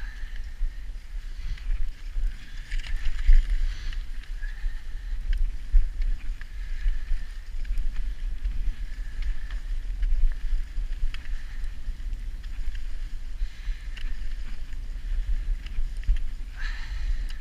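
Wind rumbling on an action camera's microphone as it moves quickly along a snowy path, with faint scattered ticks and crunches.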